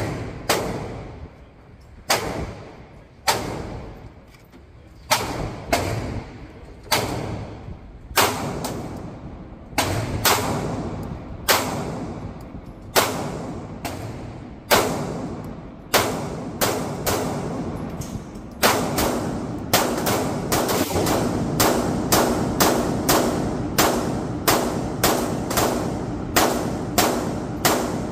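Handgun shots at an indoor range, each sharp report followed by an echo off the concrete walls. The shots come about one every second or so at first, then after about two-thirds of the way through they come faster, about two a second.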